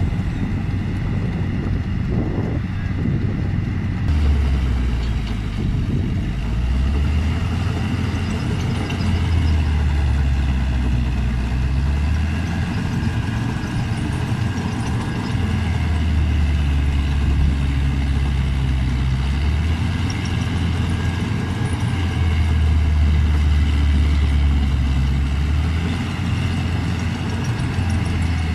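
CLAAS combine harvester working in a paddy field: a loud, continuous engine drone whose low note swells and eases every few seconds as the load changes, with steady higher whining tones above it.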